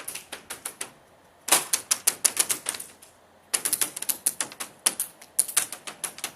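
Bursts of full-auto airsoft gunfire: rapid sharp clicks, about eight a second, in four bursts broken by short pauses, with BBs ricocheting off nearby surfaces.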